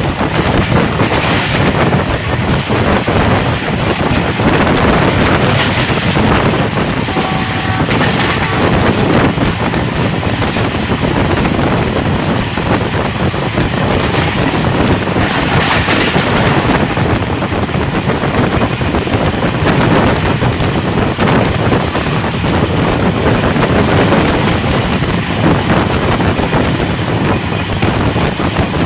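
Steady rush of wind on the microphone over the running noise of a moving train.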